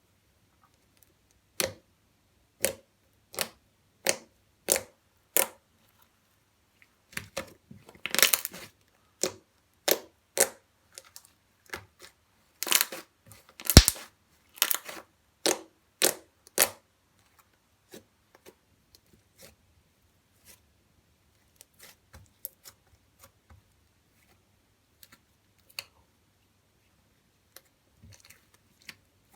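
Slime being squeezed and poked, giving sharp wet pops and clicks: six evenly spaced pops near the start, then bunches of crackling pops, thinning to occasional faint clicks in the second half.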